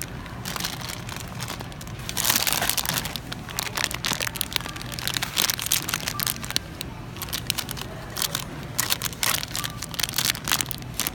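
Clear plastic wrapping of a lollipop package crinkling as it is handled, a dense run of crackles that is loudest about two seconds in.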